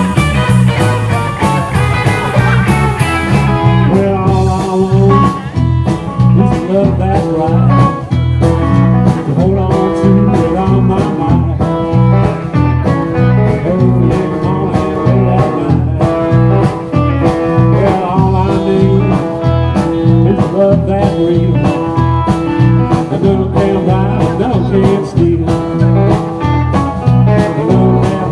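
Band music with guitar and a steady beat.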